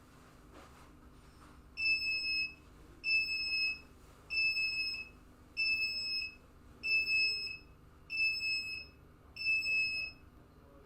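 Provision NVR's built-in buzzer beeping seven times, each a high steady beep of about two-thirds of a second at a little over one beep a second. This is the recorder's alarm output, set off because its camera analytics detected movement while the system was armed.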